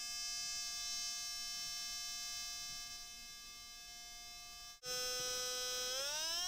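Steady electronic test tone from a homemade function generator, played through the small speakers of a homemade stereo mixer. It cuts off abruptly a little under five seconds in, and a higher tone starts whose pitch glides up and back down near the end.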